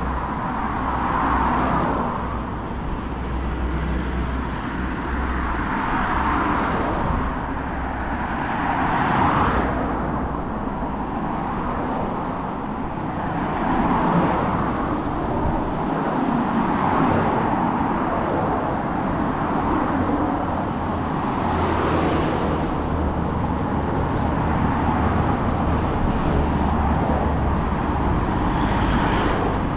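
Busy road traffic: cars and other vehicles passing one after another, rising and falling every couple of seconds over a steady low rumble.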